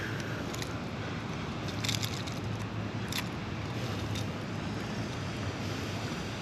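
A Jackall Rerange jerkbait's hooks being worked out of a large bass's mouth by hand, giving a few short crackling clicks about half a second, two and three seconds in. Under them runs a steady low hum of background noise.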